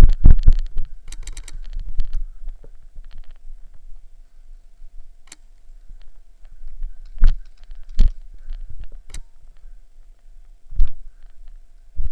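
A quick run of heavy knocks at the start, then single sharp clicks and knocks every second or two, over a faint steady tone.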